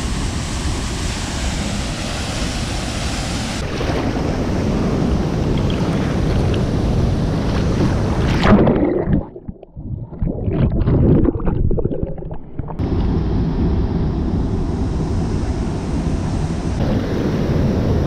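Waterfall and churning white water rushing steadily. About halfway through, the camera goes underwater for roughly four seconds: the sound turns muffled, with low bubbling and gurgling. Then it comes back up into the rushing water.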